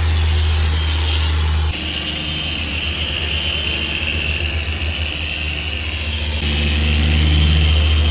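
Machine polisher running steadily while compounding car paint: a steady motor hum and a high whine. The level shifts suddenly about two seconds in and again near the end.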